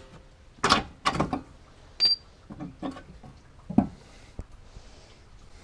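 Metal clunks and knocks from parts being handled around a car's suspension arm in the wheel well: about half a dozen sharp knocks at irregular intervals, one about two seconds in ringing briefly like struck metal.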